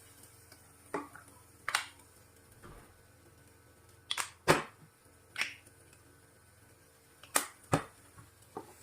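Irregular sharp knocks and clicks, about eight of them, spaced unevenly, the loudest about four and a half seconds in.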